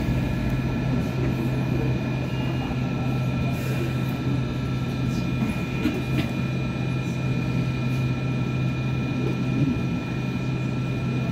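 Hong Kong Light Rail first-generation (Phase I) car running along the track, heard from inside: a steady low hum and several steady high whines over continuous wheel-and-rail noise, with a few light clicks.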